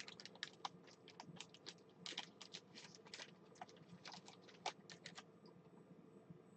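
Faint typing on a computer keyboard: light, irregular key clicks.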